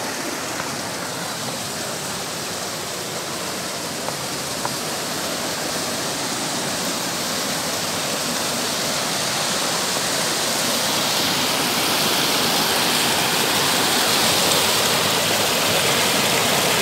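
Rocky mountain stream rushing over boulders and through a small cascade, a steady rush of water that grows gradually louder through the second half.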